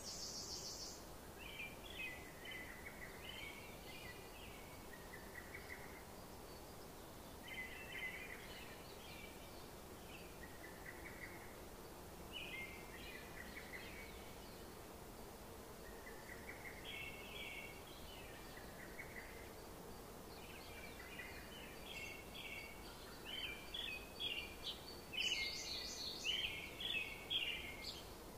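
A bird singing short chirping phrases every few seconds, coming quicker and louder near the end.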